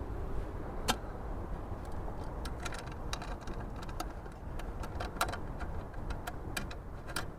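Scattered light clicks and clinks of small metal hardware, nuts and bolts being handled and fitted by hand, over a steady low background rumble.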